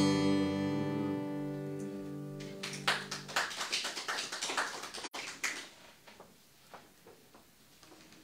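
An acoustic guitar's last strummed chord rings out and fades away over about three seconds. Then comes a quick run of sharp taps and knocks as the guitar is handled and carried off, dying to a few faint ticks.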